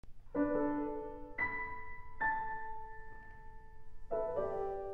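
Slow background piano music: a chord about half a second in, single notes about a second apart after it, and another chord near the end, each left to ring and fade.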